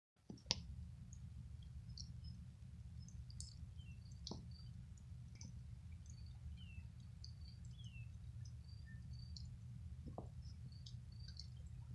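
Faint outdoor ambience: small birds giving scattered short chirps and a couple of falling calls, over a steady low rumble. Three sharp clicks stand out: about half a second in, near four seconds and near ten seconds.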